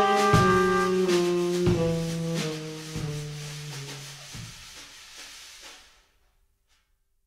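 Improvised jazz trio of trumpet, saxophone and drum kit: the horns hold long notes that step downward over a few scattered drum hits, and the music fades away to nothing about six seconds in.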